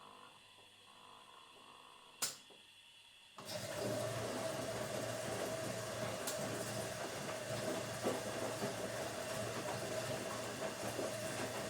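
Automatic washing machine: a single sharp click about two seconds in, then a second later the machine suddenly starts up with a steady whirring hum and rushing noise that keeps going.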